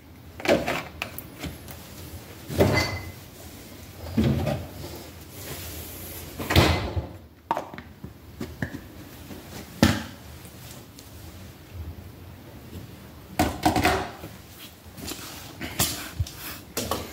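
A series of separate clunks and knocks a few seconds apart: a plastic personal-blender cup being handled and set down on a kitchen counter, with the rustle of the camera being moved.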